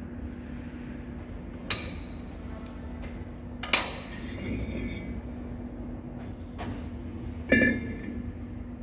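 Steel hydraulic cylinder parts clinking against a lathe's chuck jaws as they are handled. There are three sharp metallic clinks that ring briefly, one just under two seconds in, one about four seconds in and one near the end, over a steady hum.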